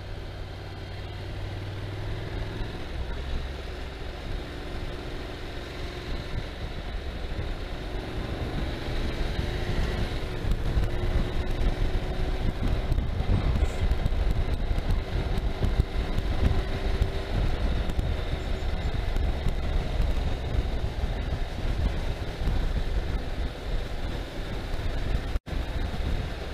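Motorcycle engine running at a low, steady road speed, with wind rushing on the microphone that grows louder about a third of the way in. The sound drops out for a moment near the end.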